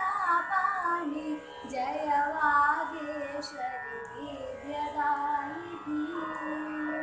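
A girl singing a Carnatic-style devotional prayer to the goddess Saraswati, drawing out long vowels in ornamented notes that bend and glide in pitch.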